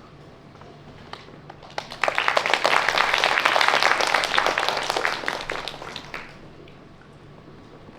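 Audience applauding: a few scattered claps, then a burst of clapping about two seconds in that dies away after about four seconds.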